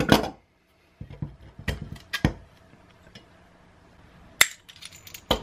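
Metal clinks and knocks of hand tools being handled: locking pliers and a small homemade bearing puller clanking against each other and the workbench. There are half a dozen sharp separate clanks, the loudest right at the start.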